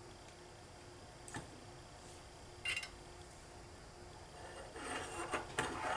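A few small sharp clicks and taps of pliers and a soldering iron against a power-supply circuit board while a capacitor leg is desoldered. A short cluster of clicking and clatter comes near the end.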